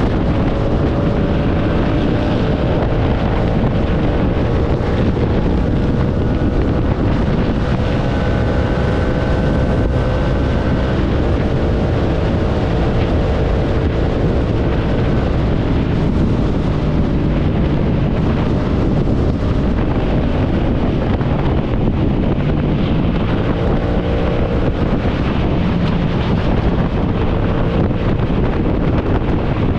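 Motorcycle engine running under way, its drone drifting slowly up and down in pitch, under a constant rush of wind on the microphone.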